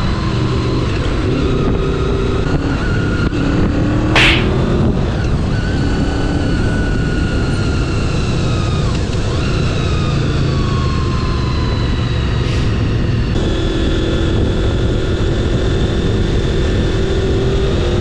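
Honda VFR800's V4 engine running at road speed, heard on board over a steady rush of wind. Its pitch sinks slowly for several seconds as the bike slows, then jumps higher about thirteen seconds in. There is one brief sharp noise about four seconds in.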